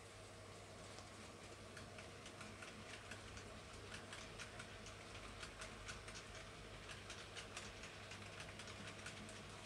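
N gauge model train running along the track, its wheels making faint, irregular light clicks over the rail joints.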